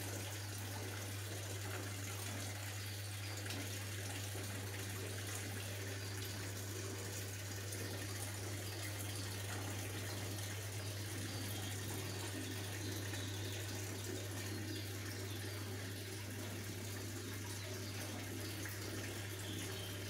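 Sharp ES-F886S-R top-loading washing machine filling with water during a test run on a replacement control module: a steady rush of water with a constant low hum under it.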